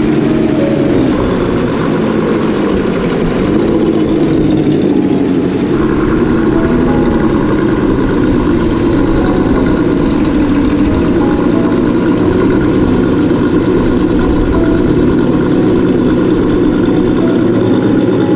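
Simulated engine sound for a Traxxas TRX-4 Defender scale RC crawler, running steadily with small rises and falls in pitch.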